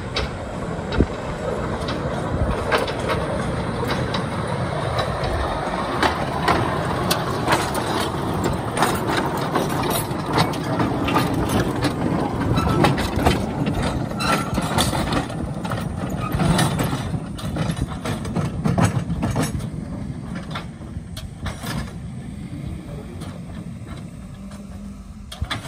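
Narrow-gauge mine train running on light rail, its small steel-wheeled mine cars rumbling and clattering with many sharp clicks and knocks from the track. The clatter thins out and quietens near the end as the train slows.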